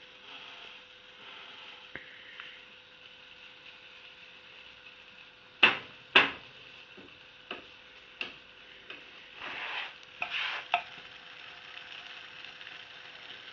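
Pancake batter sizzling quietly in a hot frying pan. About halfway through, a utensil knocks and scrapes against the pan several times; the first two knocks, close together, are the loudest.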